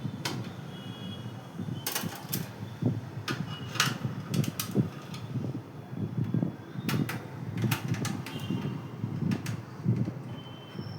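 Irregular clicks and knocks of computer parts being handled during a PC build.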